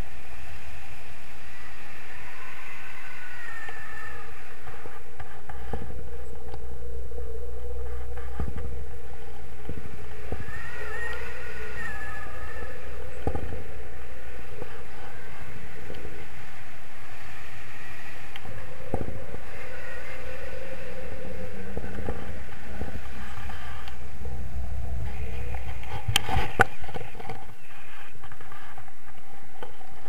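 Wind rushing and buffeting over an action camera's microphone in paraglider flight, a steady rush with a low rumble that swells and eases. A few short knocks from the camera mount cut through, the loudest a few seconds before the end.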